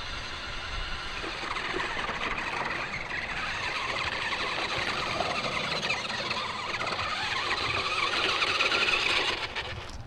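Electric drive motors and gearing of a Ruko 1601AMP2 amphibious 1:10 RC truck, whining high and steadily as it drives out of the water and across grass. The whine grows louder and cuts off about nine and a half seconds in as the truck stops.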